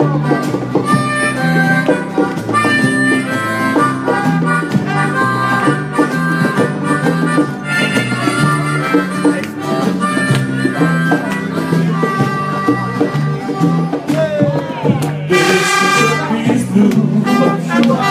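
Live band playing an instrumental blues break: a trumpet plays the lead over guitar and a steady stepping bass line. The lead is loudest in a held passage about fifteen seconds in.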